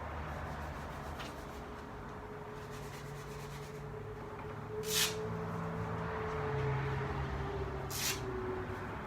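A person breathing hard from exertion: two sharp, hissing exhales about three seconds apart, the first the louder, over a steady low hum.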